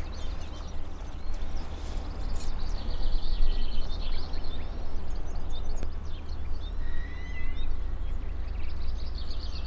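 Wind buffeting the microphone as a steady low rumble, with small birds chirping and trilling in the background.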